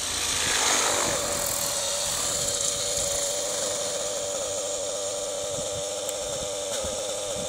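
T-Rex 700 radio-controlled helicopter rushing in low during an autorotation landing, its rotor swooshing loudest about a second in. It then sits on the ground with its motor running steadily at idle and the rotor still turning.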